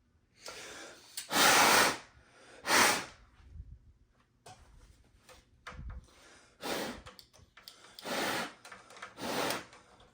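Aerosol contact cleaner (DeoxIT) sprayed into the amplifier's controls in about six short hissing bursts, the loudest two early on.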